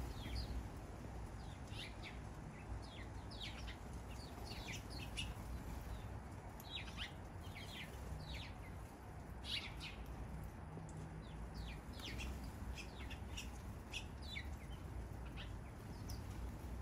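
Backyard birds chirping after rain: many short, high chirps from several birds overlapping, coming thick and fast with no pause, over a steady low hum.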